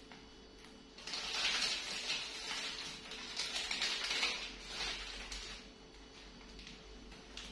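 Plastic packaging crinkling and rustling in the hands as a small packet is picked up and handled, starting about a second in and dying away about five seconds in, in irregular swells.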